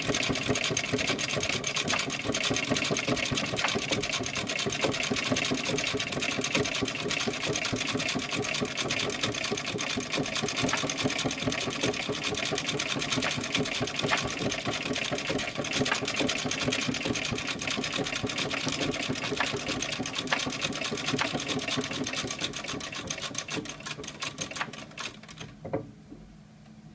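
1865 Florence sewing machine running: a fast, steady mechanical clatter of its stitching mechanism, which slows and stops a second or so before the end.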